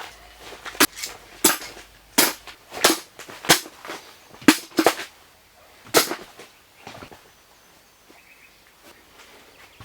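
A series of about eight sharp hammer blows on wood, roughly one every two-thirds of a second, stopping about six seconds in.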